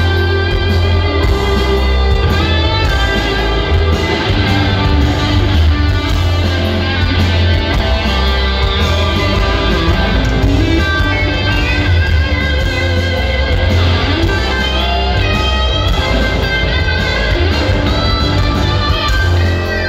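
Hard rock power trio playing live through a concert PA, heard from the audience: an instrumental passage with electric guitar over bass guitar and drums, with a heavy, boomy low end.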